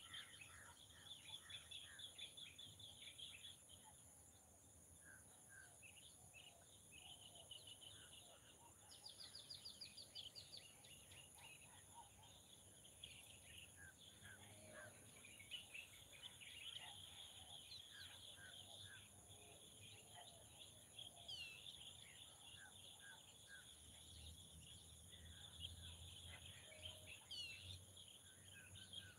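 Faint insects and birds: a steady high insect drone with pulsing cricket-like trills, scattered bird chirps, and a few short rising whistles, with a low hum building near the end.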